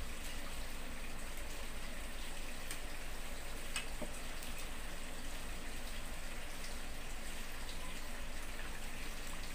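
Steady background hiss with a few faint clinks of cutlery and dishes as a meal is eaten, the clearest one just under four seconds in.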